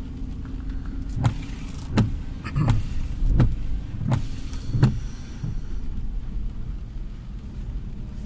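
Car windscreen wipers clearing rain from the glass: three sweeps about a second and a half apart, each with a high-pitched squeak ending in a knock, then they stop. Under them runs the low steady rumble of the moving car in the cabin.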